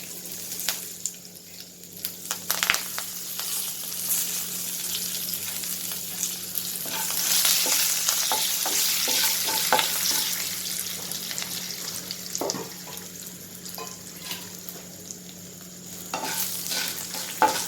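Curry leaves, dried red chillies, mustard seeds and fenugreek frying in hot coconut oil: a steady sizzle with the scrape and tap of a spoon stirring the pan. The sizzle swells louder through the middle, then settles.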